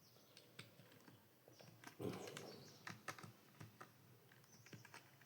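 Computer keyboard typing: scattered, irregular key clicks, with a short low voice-like sound about two seconds in.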